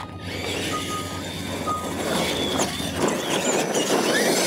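Electronic start-light beeps, a few short tones in the first two seconds, then radio-controlled monster trucks launching off the line, their motors and tyres growing louder with high-pitched whining as they accelerate.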